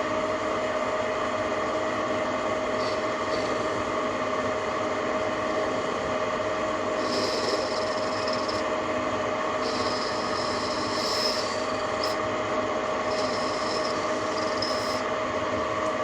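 TV-16 benchtop lathe running steadily with a constant gear whine while a boring tool cuts inside a metal workpiece. A higher hiss from the cut comes and goes in three passes in the second half.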